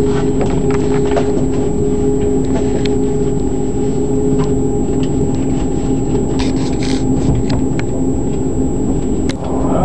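Moving passenger train heard from inside the carriage: a steady running rumble with a held hum and scattered light clicks and rattles. One of the hum's tones fades out about halfway through.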